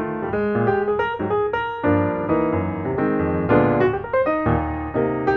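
Background piano music: a run of single notes and chords.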